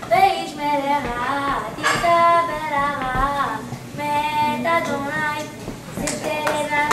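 A boy singing solo without accompaniment, holding some notes for about half a second.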